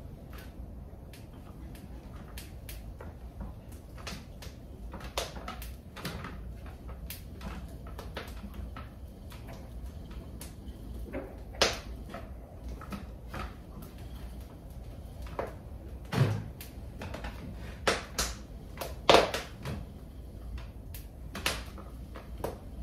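Irregular clicks and knocks, a few of them sharp and much louder, one or two with a dull thud, over a low steady rumble.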